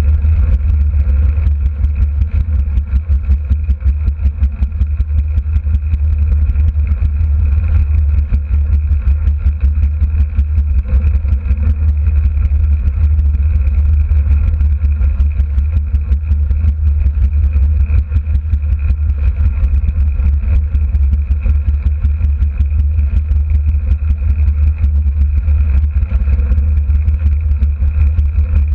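A derny pacing motorbike's small engine running steadily at speed on the track, with a heavy low rumble of wind and motion on the microphone.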